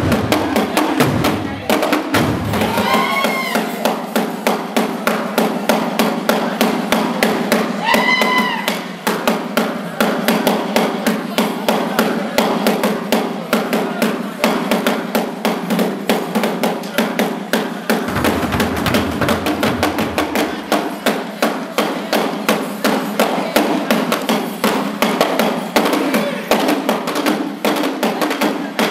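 Ensemble of tall Rwandan ingoma drums beaten with sticks in a fast, steady, interlocking rhythm. Two brief high rising-and-falling calls ring out over the drumming a few seconds in, and a deeper bass drum booms through for a few seconds about two-thirds of the way through.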